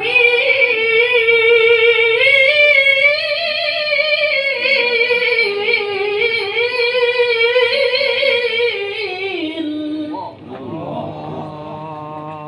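Melodic Qur'an recitation (tilawah) by a solo voice: one long, high, ornamented phrase with wavering melismas, held about ten seconds and sliding down in pitch at its close. A lower, quieter voice follows briefly near the end.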